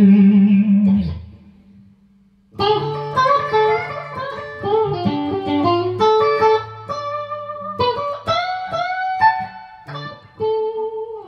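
Clean electric guitar, a Squier Stratocaster Deluxe through a diode-bridge compressor pedal set to a slow attack and slow release, into a Mesa Boogie Mark Five:25 amp on its clean channel, playing single notes and double-stops with some bends. The notes die away about a second in, and playing starts again at about two and a half seconds.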